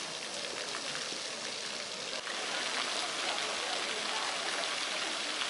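Fountain jets spraying water that splashes onto wet paving: a steady hiss of falling water, a little louder from about two seconds in.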